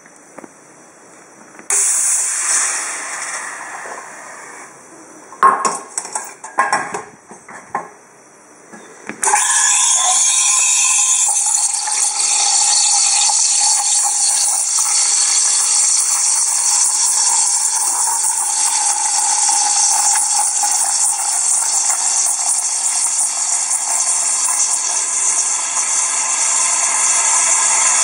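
Steam wand of a homemade dual-boiler espresso machine: a short hiss of steam early on and a few clinks of a metal milk pitcher, then, from about a third of the way in, a loud steady steam hiss as milk is steamed in the pitcher.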